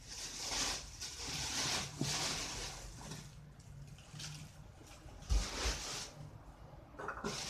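Plastic bags rustling and crinkling as they are pulled out of a cooler, in several short bursts, with a dull thump a little past halfway.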